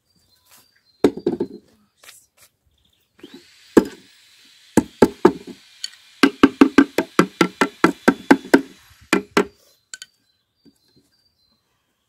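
Knocking on an old wooden birdhouse box while the old nest is being cleared out of it: a few knocks about a second in, then a quick run of hollow wooden knocks, about four a second, for several seconds.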